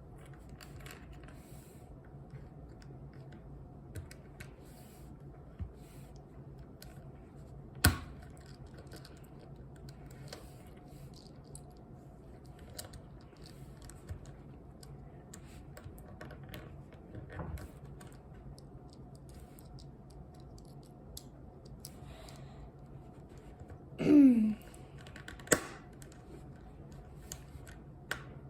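Small plastic cube pieces clicking and snapping as a mini Rubik's cube is put back together: scattered light clicks, with a sharp snap about eight seconds in and another near the end. Shortly before that last snap comes a brief vocal sound falling in pitch.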